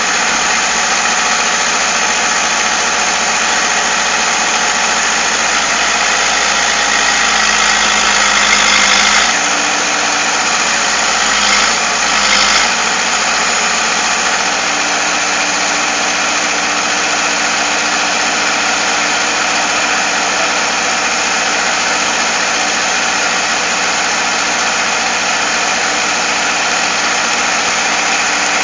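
Excavator's diesel engine running steadily, its note shifting slightly about nine seconds in and again about fifteen seconds in.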